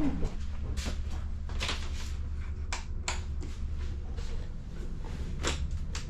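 Scattered light knocks and clicks of footsteps and handling in a travel-trailer bunk room, over a steady low hum. The sharpest knock comes near the end.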